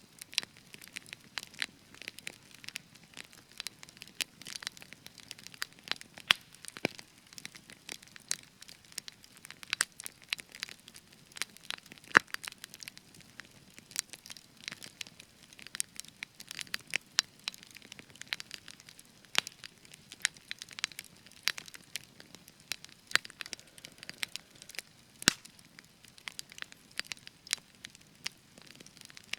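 Spruce wood burning in a campfire, crackling and popping constantly over a faint hiss, with a few sharper pops standing out, the loudest about twelve seconds in.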